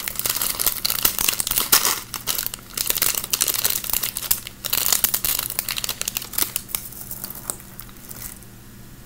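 Thin plastic bag crinkling as it is handled and emptied of slime add-ins, a dense crackly rustle that thins out and grows quieter over the last few seconds.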